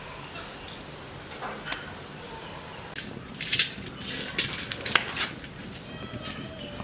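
Irregular clinks, knocks and scrapes of cooking gear being handled, starting about three seconds in, over a steady low background.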